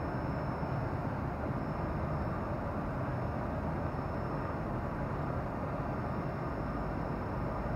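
Dust filter mesh tube forming machine running steadily, a continuous mechanical noise with a faint high whine held on one pitch.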